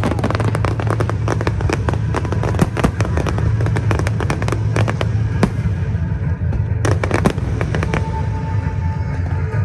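Fireworks going off in a dense run of sharp cracks and pops, one after another, thinning out for a moment about six seconds in, over a steady low hum.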